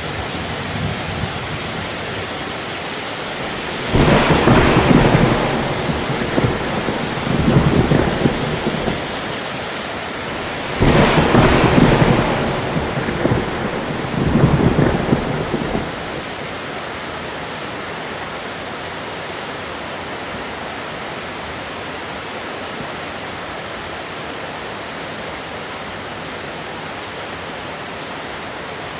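Steady rain with two rolls of thunder, the first about four seconds in and the second about eleven seconds in, each lasting several seconds with two swells; after the second roll only the steady rain.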